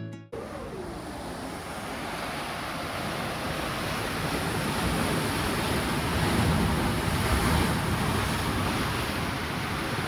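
Ocean surf washing steadily onto a beach, swelling a little in the middle, with wind on the microphone.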